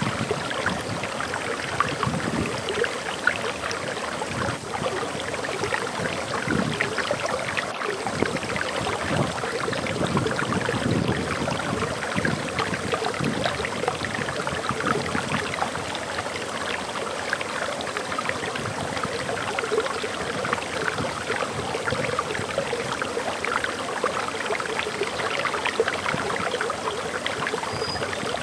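Water flowing over a small waterfall: a steady rushing with constant splashing.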